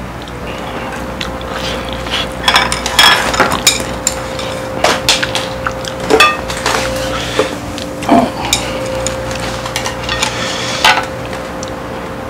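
Metal utensils clinking and scraping against a plate or bowl in irregular knocks, heaviest in the middle of the stretch and stopping about a second before the end.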